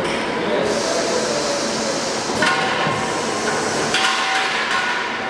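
Steady industrial machinery noise from an LPG cylinder circumferential welding machine as it releases and moves out a welded cylinder body. A louder hiss, carrying a few steady tones, starts about two and a half seconds in and again at four seconds.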